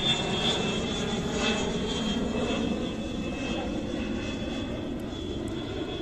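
Steady drone of an engine with a faint high whine over it.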